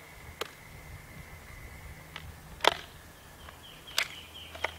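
ArmaLite AR-7 .22 rifle's action being worked by hand to clear a jammed round: five sharp metallic clicks and clacks of the bolt and charging handle, spread irregularly, the loudest about halfway through.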